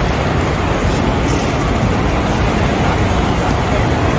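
Steady rumbling noise of a large airport terminal hall, an even wash of ventilation, rolling luggage trolleys and distant crowd, with no single sound standing out.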